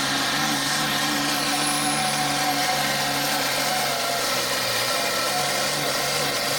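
Case IH 7210 pulling tractor's turbocharged diesel engine running flat out under the load of the weight sled, loud and steady, with a thin high whine above it.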